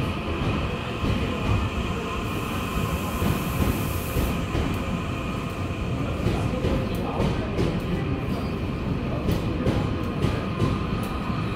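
KORAIL Gyeongui–Jungang Line electric train pulling into the platform, heard through the platform screen doors: a steady rumble, with a quick run of wheel clicks over the rail joints in the second half.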